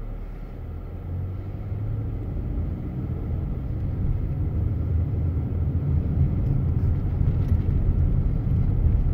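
Car engine and road rumble heard from inside the cabin, growing steadily louder as the car pulls away from a stop and gathers speed.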